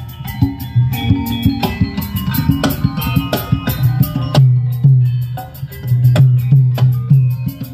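Recorded music with a drum kit and heavy bass played loud through stacks of large PA loudspeaker cabinets in the open air, with a strong, forward midrange.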